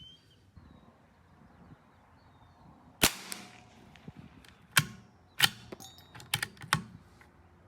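A single .22 LR shot from a CZ 457 AT-ONE bolt-action rifle about three seconds in, followed by a series of short sharp clicks from the bolt being worked to eject the case and chamber the next round.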